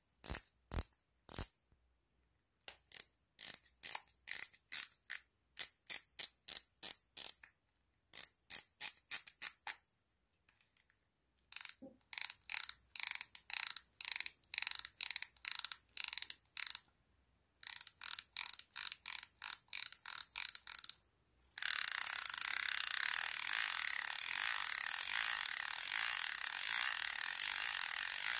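DOYO Corsa SW baitcasting reel: the star drag clicks as it is turned, in runs of about three clicks a second. Then the mechanical brake knob clicks as it is turned. About 21 seconds in, the drag gives a continuous buzzing ratchet as line is pulled off the spool.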